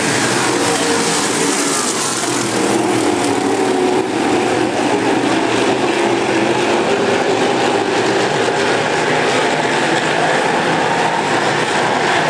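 Several semi late model dirt-track race cars' V8 engines running hard on the oval, a loud, continuous engine din whose pitch shifts up and down as the cars pass.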